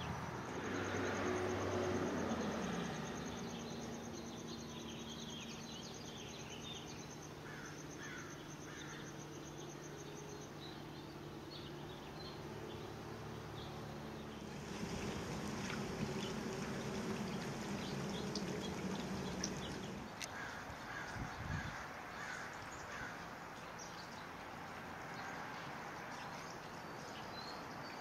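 Birdbath fountain water splashing at the start, then scattered short bird calls over a steady low hum.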